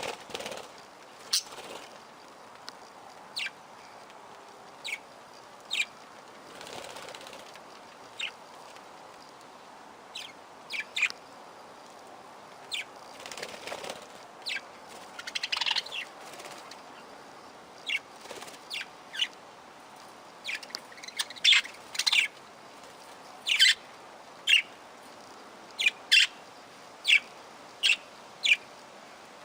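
Small aviary parrots giving short, sharp chirping calls, scattered at first and coming more often in the second half, with a few soft flutters of wings.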